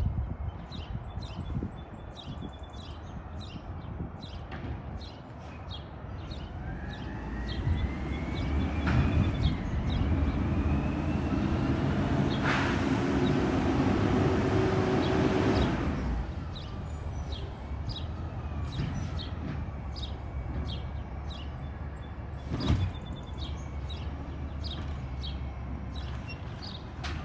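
Mack automated side-loader garbage truck pulling up the street, its diesel engine growing louder with a rising whine as it accelerates, then easing off. Partway through comes a hiss of about three seconds, and later a single sharp knock.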